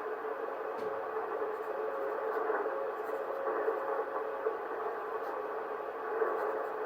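Morse code (CW) from an amateur radio receiver: a fairly low-pitched tone keyed on and off in dots and dashes over steady band hiss. This is a weak signal from a low-power station under poor band conditions.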